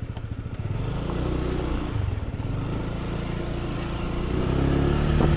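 Honda Stylo scooter engine running as the scooter pulls away under throttle. The pitch rises about a second in and again near the end. No metallic rattle is heard from the rear, now that the vibrating part has been secured.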